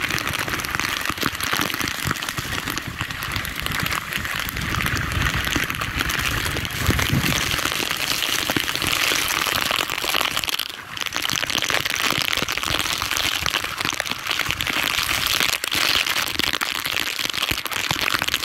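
Heavy squall rain pelting down in a dense, steady hiss, with gusting storm wind rumbling on the microphone.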